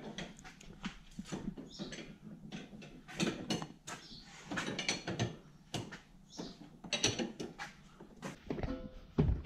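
Hand tools clicking and clinking against metal suspension and drivetrain parts under a vehicle, in irregular bursts of short clicks and rattles.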